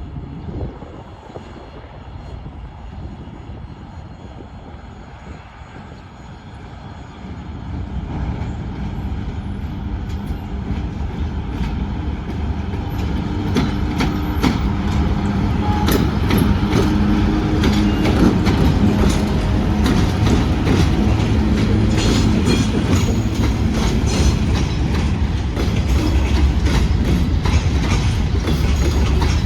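Two-section 2TE116K diesel locomotive drawing near with a freight train. A low engine drone and rumble builds from about seven seconds in and grows steadily louder, and rapid wheel clicks over rail joints start about ten seconds in and thicken as the train passes.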